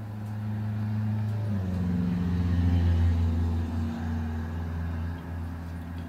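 A low, steady engine-like hum that grows louder toward the middle, drops in pitch about a second and a half in, and eases off near the end.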